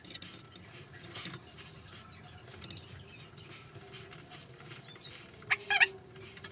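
Faint scratching and rustling of plastic-sheathed electrical cable being handled, with two short, sharp crackles about five and a half seconds in.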